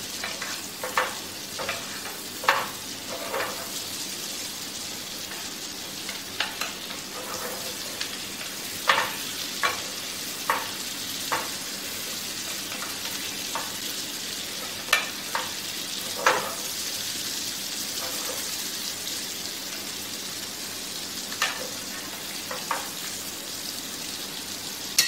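Sea bass fillet frying in butter with herbs and crushed garlic and shallot, a steady sizzle, while a utensil knocks and scrapes against the pan at irregular moments, about once or twice a second in places.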